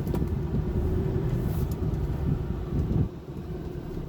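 Car moving slowly, a steady low rumble of engine and road noise that quietens about three seconds in.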